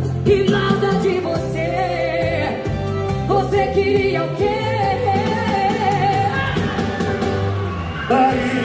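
A sertanejo universitário song with a singer and heavy bass, played loud through a Ford F-250's custom car audio system.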